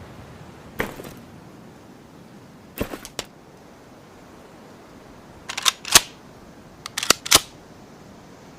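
Ruger American Rimfire-style bolt-action rifle clicking and clacking: a single sharp click, then a quick group of three, then two louder groups of clicks near the end.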